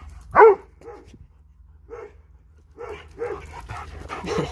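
A dog barking in play: one loud bark about half a second in, then several shorter, quieter barks, with a quick run of them near the end.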